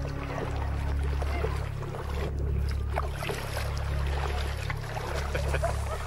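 Small splashes and lapping of seawater against a kayak, with low, pulsing wind rumble on the microphone.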